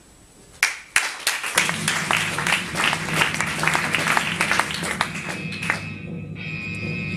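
Audience applauding, breaking out suddenly about half a second in and dying away near the end, while music starts up underneath and carries on.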